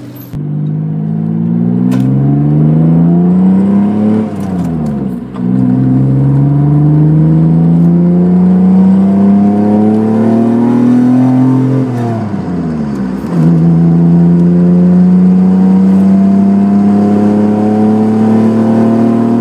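1993 Mitsubishi 3000GT's naturally aspirated 3.0-litre V6 accelerating hard through an unbaffled, catless dual-pipe catback exhaust, heard from inside the car. The exhaust note climbs, drops at an upshift about four seconds in, climbs again, drops at a second upshift about twelve seconds in, then pulls steadily.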